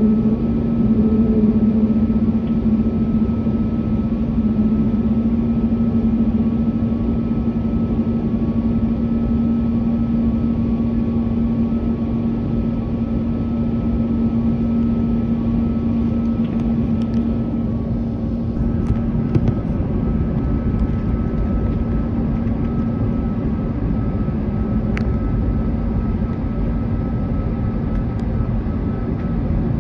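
Steady engine rumble with a constant low hum and no change in pitch.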